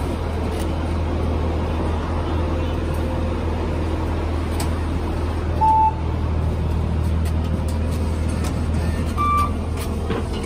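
Steady low rumble of a city bus engine idling at the stop, with two short electronic beeps, one a little past halfway and a higher one near the end.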